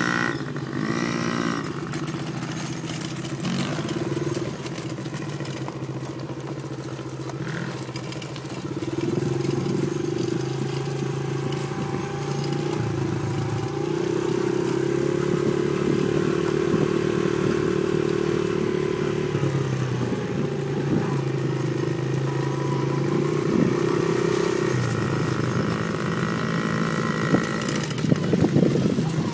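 Small dirt-bike and quad engines running and revving, the pitch rising and falling as they ride, louder from about nine seconds in.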